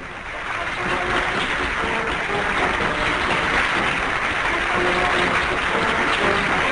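Crowd cheering and applauding, swelling up over the first second and then holding steady, with music faint underneath.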